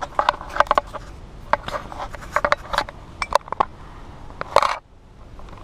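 Irregular sharp clicks and light clinking taps, a few a second, with a longer scraping burst a little before the end, after which it drops suddenly to a quiet hush.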